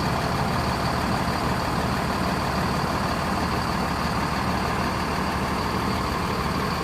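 Diesel bus engine idling steadily while being warmed up.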